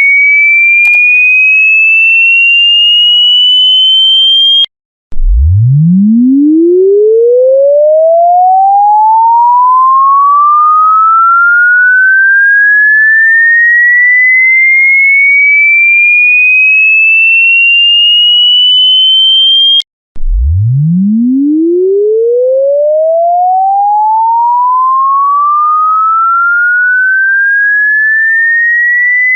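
A loud, pure electronic tone sweeping slowly upward from a deep hum to a high whistle over about fifteen seconds. It cuts off at the top and starts again from the bottom, twice.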